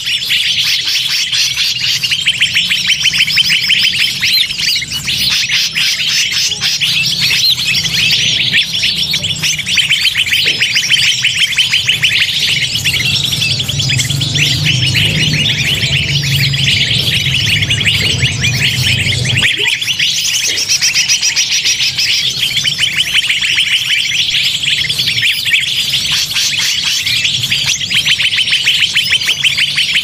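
Bird-luring call recording: a dense, unbroken chorus of many small birds chirping and twittering at once, a high busy clamour of overlapping calls. A low hum underneath cuts off about two-thirds of the way in.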